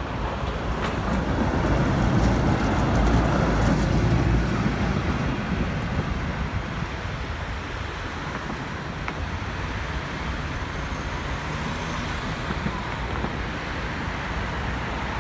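Yellow Ring Tram articulated streetcar rolling past close by, its wheels rumbling on the rails, loudest two to four seconds in. Afterwards a steady hum of city road traffic.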